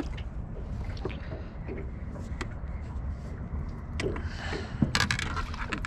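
Steady low wind-and-water noise around a small drifting fishing boat, with a few light clicks and knocks near the end as a small fish is swung in on the line.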